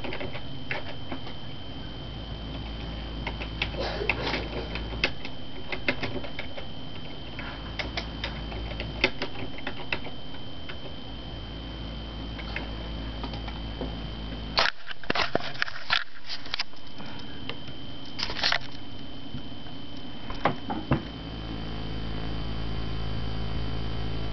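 Computer keyboard keys clicking in irregular bursts of typing, over a steady low hum and a faint high whine.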